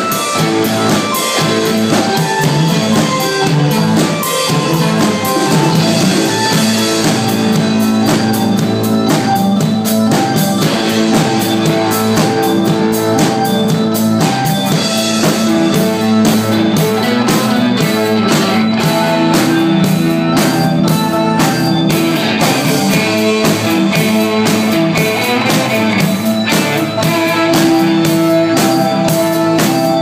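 Live rock band playing loud: a drum kit beating steadily under electric guitar and sustained pitched tones.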